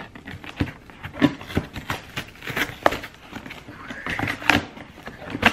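Cardboard shipping box being handled and its flaps pulled open: an irregular run of sharp crackles, scrapes and knocks of cardboard.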